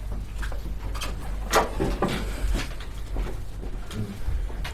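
A few scattered knocks and rustles of people moving about as speakers change seats, over a steady low hum.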